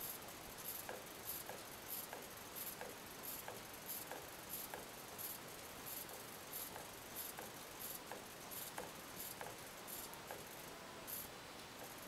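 Eggbot egg-drawing robot at work: its stepper motors turn the egg and swing the pen arm in short moves while the felt-tip pen scratches on the eggshell. The sound comes as faint, high, scratchy bursts about two or three times a second.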